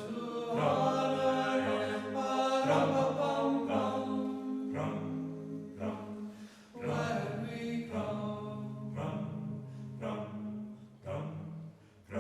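Background choral music: voices singing slow, chant-like phrases with long held notes, broken by short pauses between phrases.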